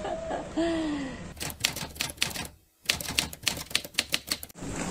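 A spoon clinking rapidly against a cup as a drink is stirred, in two quick runs separated by a short break.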